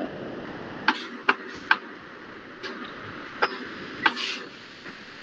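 A few short, sharp clicks or taps, about five in all, scattered over a steady hiss from a computer microphone.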